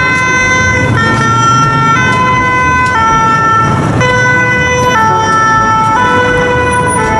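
Two-tone siren of a Paris fire brigade (Sapeurs-Pompiers de Paris) vehicle, loud, alternating between a high and a low note about once a second, with road noise beneath.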